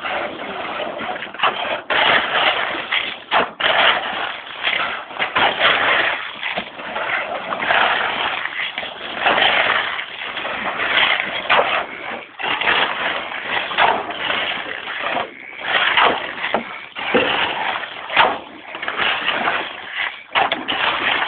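Irregular scraping and crunching of gritty construction material, a dense run of uneven strokes with no steady rhythm, heard through a phone's microphone.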